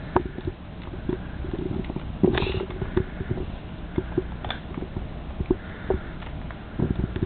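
Scattered light knocks and clicks of toys being handled and set down, with one louder brief sound about two seconds in.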